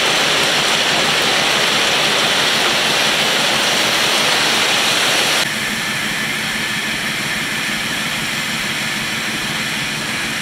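Steady rushing, hissing noise of crushed-stone ballast pouring from a slow-moving ballast hopper wagon and scraping along the track bed, with the train rolling. About five seconds in the sound drops abruptly to a quieter, less hissy rush.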